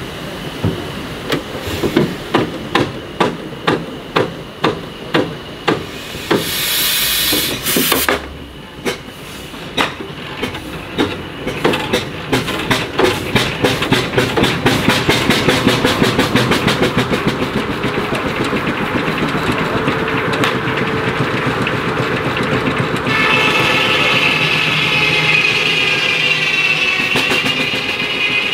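Steam traction engine exhaust beats, slow at first, then quickening until they run together as the engine gathers speed, with a brief burst of steam hiss about seven seconds in. From about twenty-three seconds a circular saw bench sets up a high, wavering whine.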